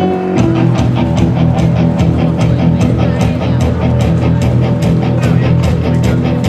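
Loud rock-style music with guitar and a steady beat.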